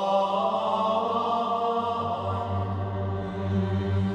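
Background music: one chord held steady, with a low drone beneath it.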